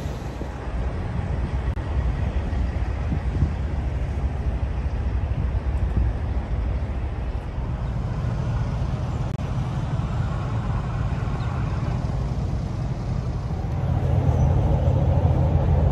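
Steady low rumble of vehicle engines and traffic, growing a little louder near the end.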